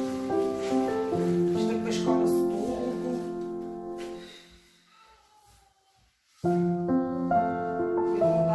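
Background piano music, a gentle melody that fades away about halfway through and starts again abruptly a second or so later.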